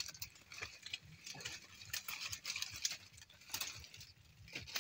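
Dry grass and leaves rustling and snapping with scattered light clicks as hands push through dense undergrowth.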